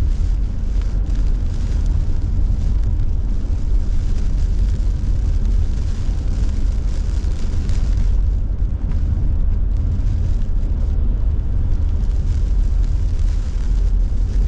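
Car cabin noise while driving through a hurricane's wind and rain: a steady, heavy low rumble of wind and road noise, with an even hiss of rain on the car.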